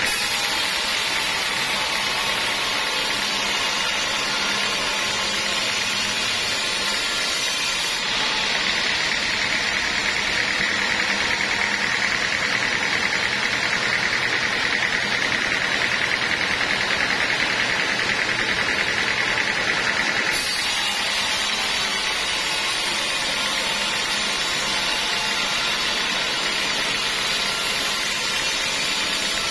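Sawmill saw running steadily through teak wood, with a continuous high whine over a noisy rush. The tone shifts about eight seconds in and again about twenty seconds in.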